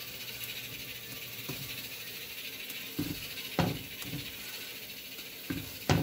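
Hotteok sizzling in hot oil in a nonstick frying pan, a steady hiss. From about three seconds in, a stainless steel spatula knocks against the pan and pancake a few times, loudest near the end.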